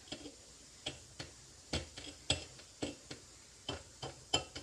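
Rim of an upside-down glass jar mug clicking against a ceramic plate as it is pressed and turned in chili powder to frost it: about ten light, irregular clicks.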